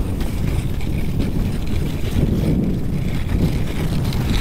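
Dog sled running on a hard-packed snow trail: a steady rumble of the runners sliding over the snow, with wind buffeting the microphone.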